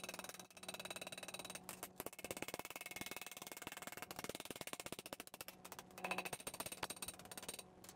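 Small hammer rapidly tapping thin sheet metal against the steel edge of an anvil tool: a quick, continuous run of light taps, bending a strip over into a flange.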